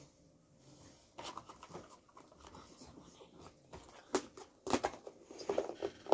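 A clear plastic food tub and its lid being handled, with sharp plastic clicks and knocks, mixed with soft squishing of play putty.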